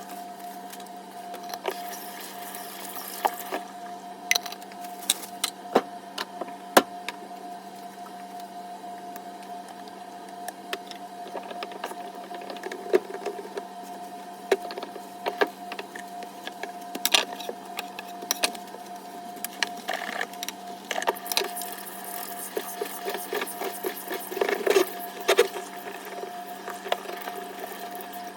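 Scattered clicks and knocks of objects being handled, more frequent in the second half, over a steady hum.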